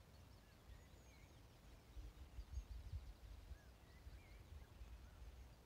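Faint birdsong, scattered short chirps and trills, over a low wind rumble on the microphone.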